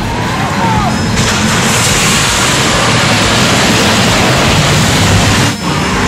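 Demolition derby cars' engines running and revving in a loud, noisy din of engines and tyres on dirt. The sound cuts out briefly about five and a half seconds in.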